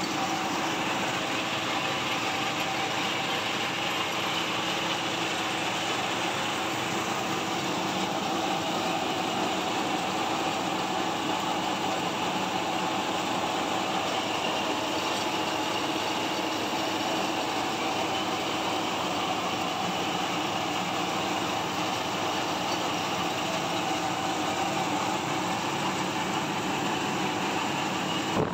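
Rice milling machine running steadily, a constant mechanical hum and rush, while paddy is fed into its hopper and milled rice pours out of its chute.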